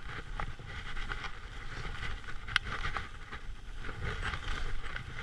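Skis swishing and scraping through chopped-up soft snow in uneven pulses, with wind rumbling on the camera microphone. A sharp click comes about two and a half seconds in.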